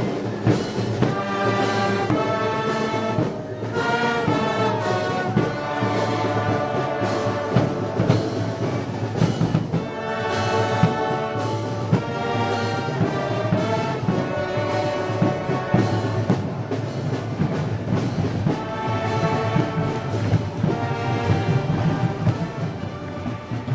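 Live Spanish festival brass band playing a march, brass over a steady drum beat.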